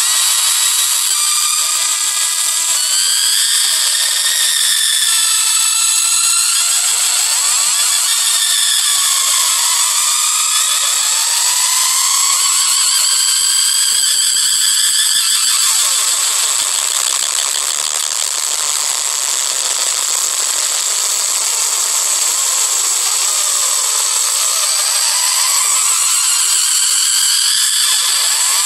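Experimental noise music: a dense, shrill mass of high tones with many overlapping rising glides and almost nothing in the bass.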